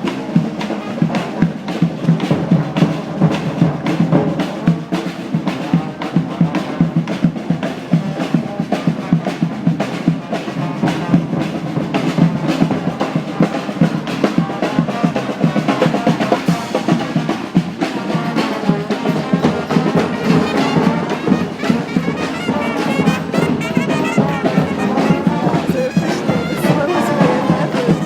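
Street brass band playing live: trumpets and other horns over a steady, driving drumbeat.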